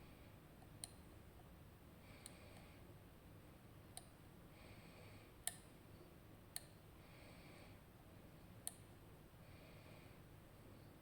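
Six sharp, faint clicks a second or two apart, the loudest about halfway through: a lock pick working the pins inside a RUKO Garant high-security lock cylinder.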